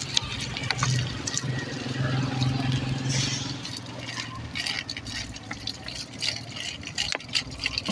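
Water pouring from an upturned plastic soft-drink bottle onto the soil at the base of a shrub, splashing and trickling, with a low steady hum underneath.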